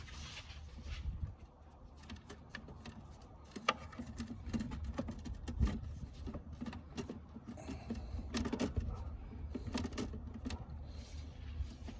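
Irregular small clicks, clacks and light rattles of plastic and metal parts being handled and fitted by hand while reassembling the intake plumbing in an engine bay, over a low steady hum.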